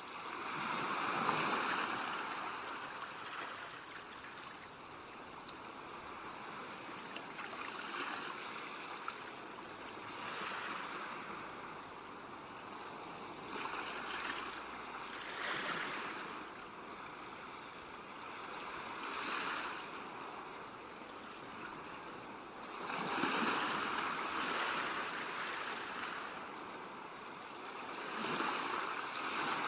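Ocean waves breaking and washing in: a continuous rushing surf that swells and fades every four to six seconds, loudest about a second in and again in the last third.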